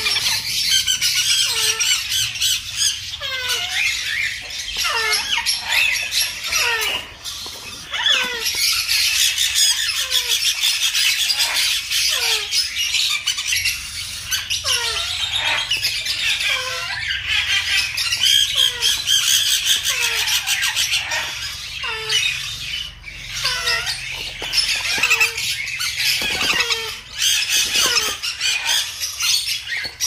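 Baby conures begging during hand-feeding: a continuous harsh rasping squawk, with short falling squeals repeated about once a second.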